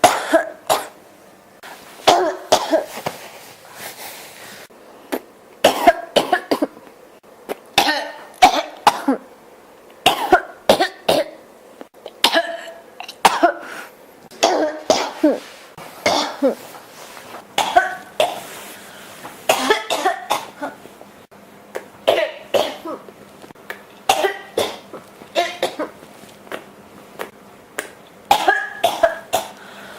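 A person coughing in a persistent fit that does not stop: short coughs in clusters of two or three, coming every couple of seconds.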